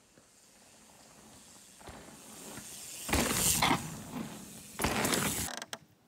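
Mountain bike ridden down a dirt trail and passing close by: faint rolling noise that grows into two loud rushes of tyre and bike noise, about three and five seconds in, then cuts off suddenly.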